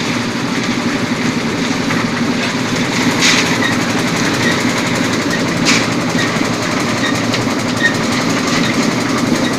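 Engine-driven concrete mixer running, a steady mechanical hum and rattle, with two sharp clanks partway through.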